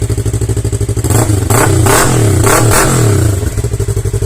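Yamaha R3 parallel-twin motorcycle engine idling, then revved in several quick throttle blips from about a second in, settling back to idle near three and a half seconds.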